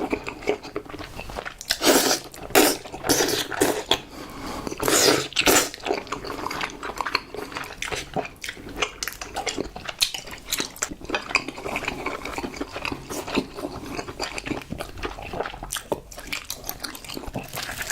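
Close-miked eating of crispy fried chicken: several loud crunching bites in the first few seconds, then steady chewing with many small crackles.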